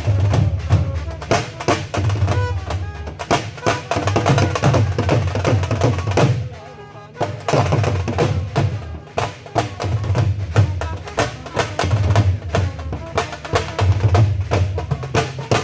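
Dhol drumming: fast, dense rhythmic strokes of Sufi dhamaal-style playing, dropping back briefly about six to seven seconds in before resuming.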